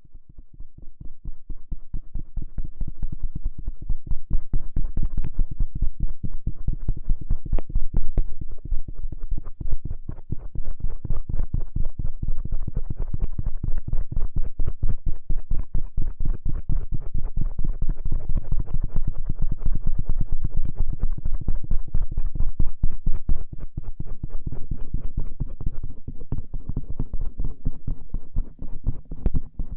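Stainless-steel ear pick scraping and rubbing over the outer ear right at the microphone, in rapid, closely spaced strokes.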